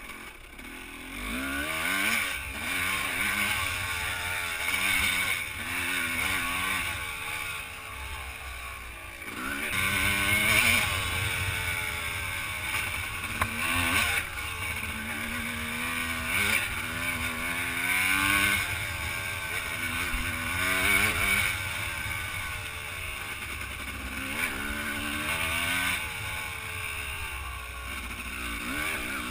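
Dirt bike engine under way on a trail, revving up repeatedly and dropping back as the throttle is opened and closed through the gears.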